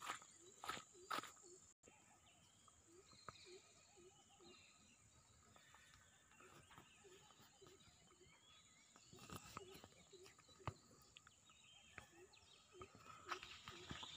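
Near silence, with faint footsteps on a dirt track: a few at the very start and more from about nine seconds in.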